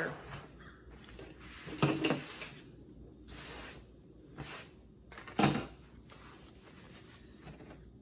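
Short, scattered handling noises on a workbench: a small plastic parts bag crinkling and a few light knocks as a chainsaw carburetor and tools are picked up, the loudest about five seconds in.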